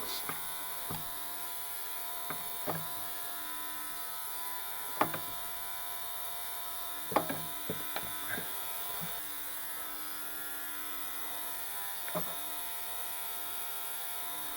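A steady buzzing hum, with a handful of sharp, irregular clicks and taps of metal parts from working a diesel injector on a hand-lever pop tester. The clicks are loudest about five and seven seconds in.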